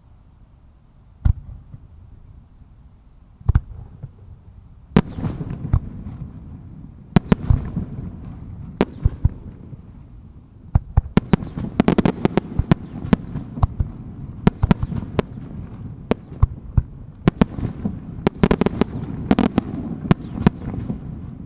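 Aerial firework shells bursting: one sharp bang about a second in and another a couple of seconds later, then a quick barrage of many booms that keeps building, with rumbling echoes between them.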